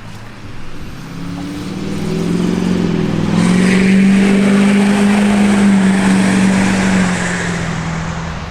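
A motor vehicle passing close by: an engine hum that builds, holds loudest for a few seconds, then drops slightly in pitch and fades near the end.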